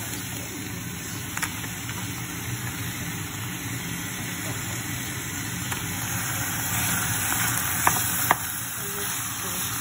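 Ground beef and onion sizzling steadily in a stainless steel saucepan while being stirred with a wooden spoon. A few sharp knocks of the spoon against the pan, two of them close together near the end.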